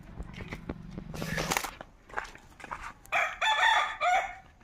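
A rooster crows once, a single call of just over a second about three seconds in.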